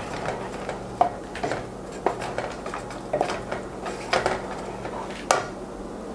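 A spoon clinking and scraping against a cooking pan in irregular knocks while salt is stirred into a thick masala gravy, with a sharper knock about a second in and another near the end.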